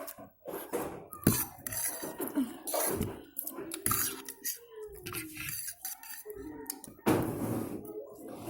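Eating utensils clinking and scraping against a dish of pancit canton noodles in irregular, sharp clicks.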